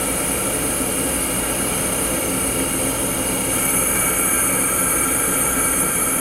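Steady rushing hiss of a flame atomic absorption spectrometer's air–acetylene burner and nebulizer running. The sound changes slightly about halfway through.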